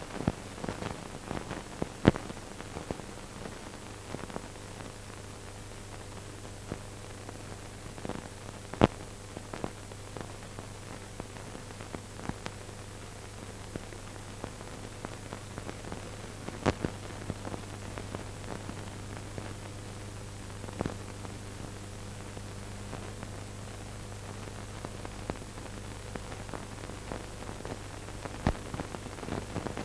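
Steady hiss with a low hum underneath and irregular sharp clicks and pops: the surface noise of an old film or tape transfer with no soundtrack of its own.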